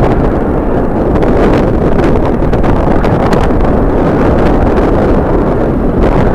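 Strong wind buffeting the microphone: a loud, steady, low rumbling rush with gusty crackle and no break.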